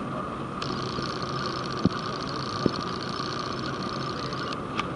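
Steady mechanical hum and hiss of a busy exhibition hall, with two short knocks about two seconds in, less than a second apart.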